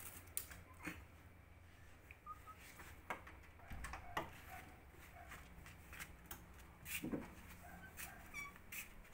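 Faint, short high-pitched cat mews, several of them and spread out, the clearest near the end. Scattered light taps and knocks run among them.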